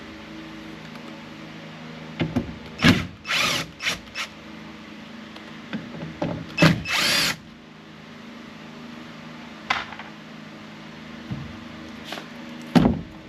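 Power drill-driver running in two short spurts, about three seconds in and again about seven seconds in, backing out the screws that hold a car door speaker housing, with scattered clicks and knocks of handling between.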